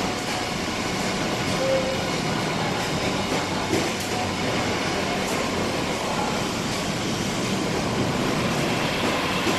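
Veneer core builder machine running: a steady mechanical rumble and clatter from its conveyors and drives, with a few faint clicks.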